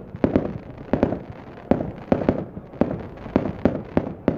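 Aerial fireworks bursting overhead in quick succession, with a sharp bang every half second or so and each bang trailing off before the next.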